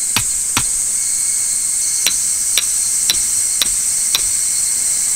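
A hammer striking a tent peg to drive it into the ground: two blows, a pause, then five more at about two a second. A steady high-pitched drone of insects runs underneath.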